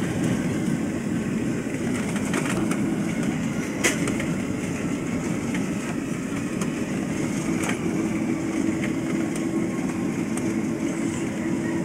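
Airliner cabin noise as the jet rolls along the ground after landing: a steady rumble of the engines and wheels, scattered with small rattles and clicks. One sharp click sounds about four seconds in, and a steady low hum joins about seven seconds in.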